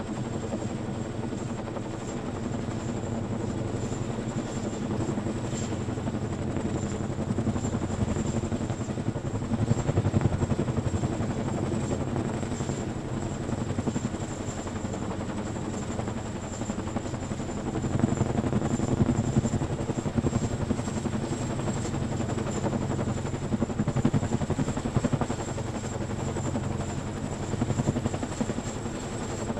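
CH-47 Chinook tandem-rotor helicopter running, with a rapid thudding rotor beat over a steady high whine. The sound swells louder a few times.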